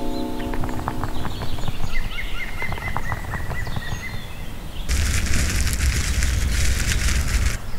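Cartoon sound effects: bird chirps and tweets with a steady high tone over the first few seconds, then, about five seconds in, a loud crackling zap with a low rumble that lasts about two and a half seconds and cuts off abruptly.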